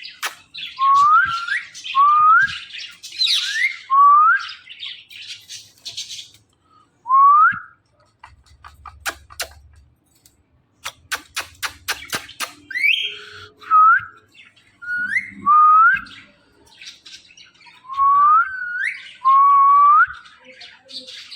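Green ringneck parrot giving a series of short rising whistles, many in quick pairs, with rapid clicking chatter between them.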